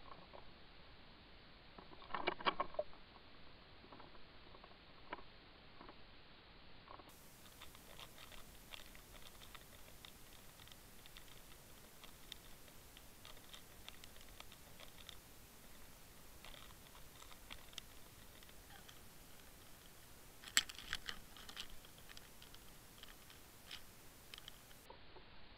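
Faint underwater ambience picked up by a submerged camera: scattered small clicks and crackles, with two louder bursts of rapid clicking about two seconds in and about twenty seconds in. The first seven seconds or so are slowed down and sound duller.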